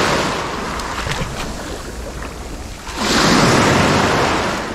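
Small waves washing up the beach at the water's edge, swelling and easing: one surge fades in the first second and another comes in about three seconds in. A low rumble of wind on the microphone lies under it.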